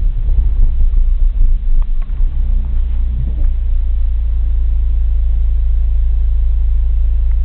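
Car running on a road, heard from inside the cabin: a loud low rumble that buffets unevenly for about two seconds, then settles into a steady drone with a faint engine hum.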